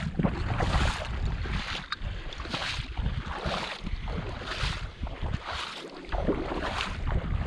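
Water sloshing in a rhythm of about one stroke a second, like wading or paddling through shallow marsh water, with wind buffeting the microphone.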